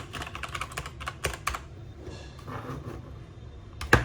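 Keys being typed on a Keychron K2 mechanical keyboard: a quick run of clacking keystrokes over the first second and a half, then quieter, with one louder knock near the end.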